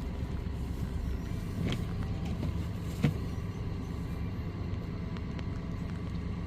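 Motor vehicle engine running steadily with a low, even hum, and a single sharp knock about three seconds in.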